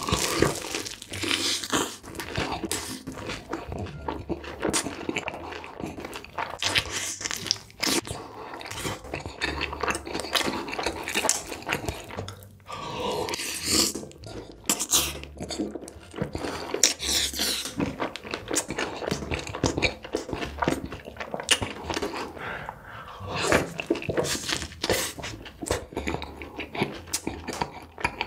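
Close-miked eating of sauce-coated fried chicken and burger: a dense run of crisp crunching bites and wet chewing.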